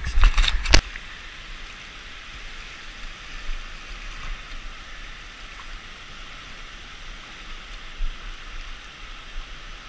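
Steady rushing and lapping of shallow water stirred by wading and the detector sweep. A few sharp knocks come in the first second, the loudest sounds here.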